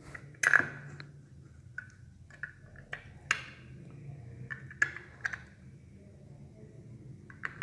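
AAA batteries being pressed into a plastic battery compartment against its spring contacts, with handling rustle and a handful of short sharp clicks, the loudest about half a second in.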